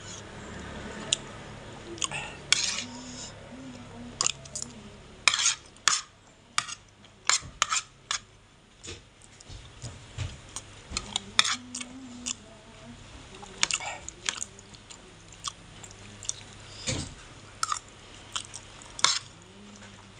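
Close-up eating sounds: a metal spoon clinking and scraping on a plate in irregular sharp clicks, mixed with chewing.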